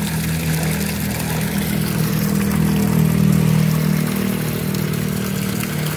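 A motor running with a steady low hum that swells and shifts a little in pitch about halfway through, over the splash and fizz of water churning in a live-fish tank.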